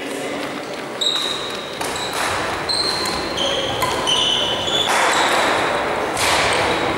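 Badminton rally: sneakers squeaking on a sports-hall floor in many short high squeaks, with sharp racket hits on the shuttlecock about a second in and again just under two seconds in.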